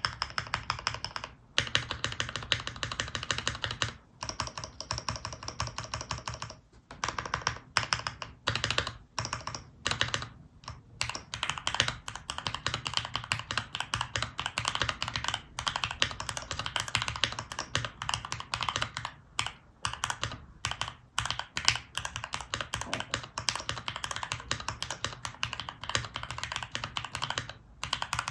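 Fast typing on a Luminkey65 mechanical keyboard with lubed and filmed Cherry MX Nixie switches, an FR4 plate and GMK keycaps: a dense run of keystroke clacks broken by several brief pauses.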